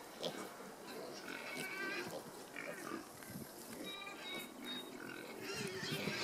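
A small group of piglets grunting as they root and shuffle about in dry, stony dirt.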